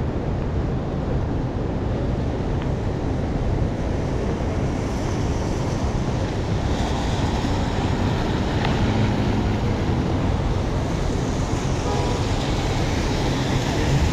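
Steady rush of heavy rain on a city street, mixed with a low rumble of traffic.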